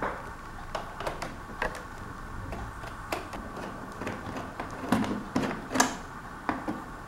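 Irregular small clicks and taps of a screwdriver and screws on a laptop's plastic bottom case as the screws are taken out, a few louder clicks about five to six seconds in.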